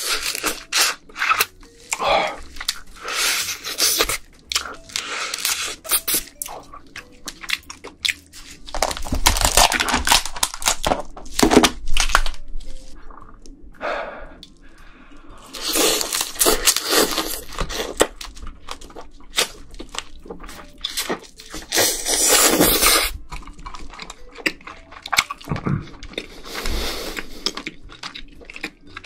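Close-miked eating of cooked red snow crab: shell crackling and crunching, meat torn from the shell, and chewing, in many quick crackles broken by a few longer, louder stretches of noise.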